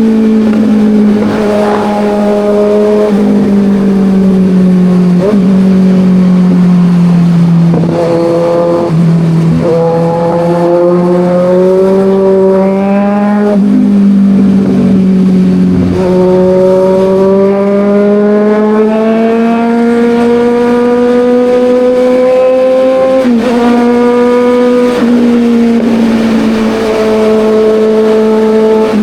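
Kawasaki Ninja 1000's inline-four engine running under load, with wind rush: the pitch climbs and sags with the throttle, with a few sudden steps where gears change, around five seconds in and twice about a minute's third later.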